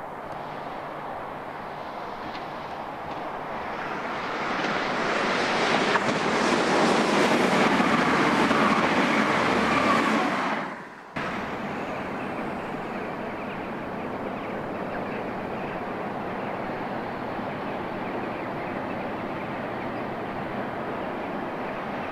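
A diesel multiple-unit passenger train passes at speed: a rushing rumble that builds, is loudest about six to ten seconds in, then fades and breaks off suddenly. After that a Class 60 diesel freight locomotive approaches slowly, its engine a steady drone.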